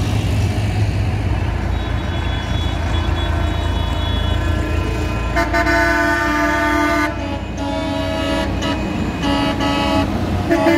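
Tractor engines running as a convoy drives past close by, with a vehicle horn blasting several times from about halfway in, the first blast the longest.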